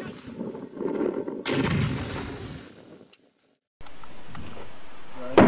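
A hand grenade explodes on a training range: a sudden loud bang about a second and a half in, its deep rumble dying away over about a second. After a brief gap of silence there is steady background noise, then a short, sharp bang near the end.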